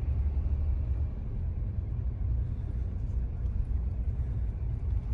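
Pickup truck driving on the road: a steady low rumble of engine and road noise.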